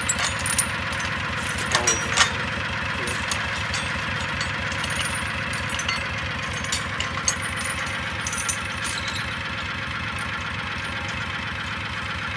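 An engine idling steadily, with sharp metal clinks and clanks in the first few seconds and again around the middle.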